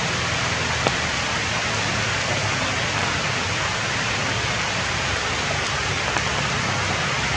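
Steady rain falling on forest foliage, an even hiss.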